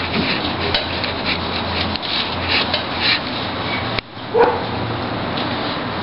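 Stainless steel tank homogenizer running: a steady motor hum with light rattling clicks. The sound breaks off sharply about four seconds in, and a short, sharp yelp-like call follows.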